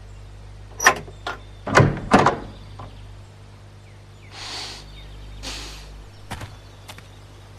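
Rusty iron slide bolt on an old wooden door being worked: a few sharp metal clacks, then two loud bangs about two seconds in. Later come two soft rustling swishes and a few light taps.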